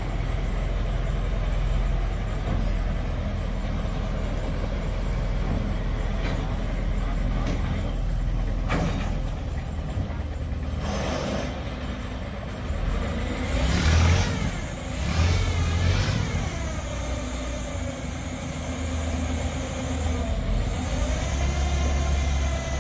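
Engine running steadily with a low rumble, with bursts of water splashing about halfway through.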